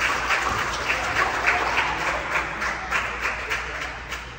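Spectators clapping together, a dense patter of claps that thins out and fades over the last second or so.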